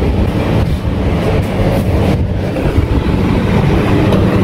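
A city bus running close by on the street: a loud, steady low rumble.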